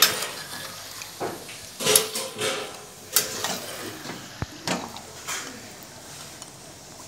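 Metal spatula scraping and knocking against a metal kadai as chicken pieces in a thick masala are stirred and turned, in irregular strokes that thin out near the end.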